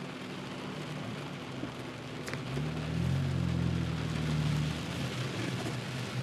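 Rain pattering steadily on a car's windshield, heard from inside the car over a low engine hum. From about two and a half seconds in, a deeper engine drone swells for about two seconds and then fades.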